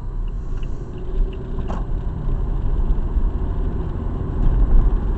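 Steady rumble of a car's engine and tyres heard from inside the cabin while driving at about 50 km/h, with a short click about a second and a half in.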